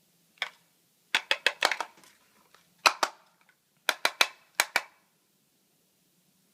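A series of short, sharp knocks: one, then a quick run of about six, a pair about three seconds in, and four more about a second later.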